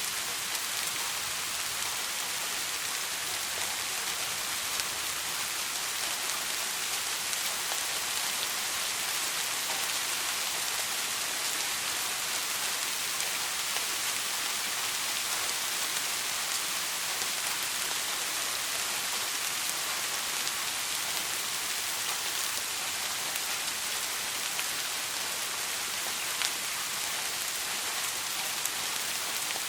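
Steady rain falling and pattering on a surface: an even hiss with many fine scattered drop ticks.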